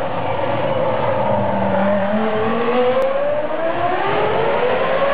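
Red Bull Formula One car's engine at high revs, its pitch dipping and then climbing steadily over the last few seconds as the car accelerates along the street.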